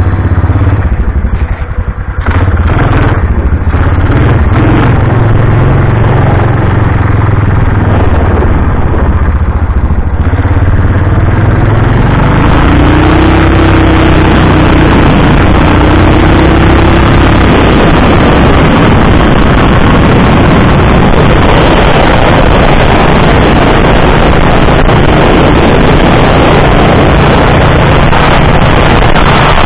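Lawnmower engine of a mini motorcycle running steadily under way. From about twelve seconds in, wind noise on the microphone grows as the bike picks up speed.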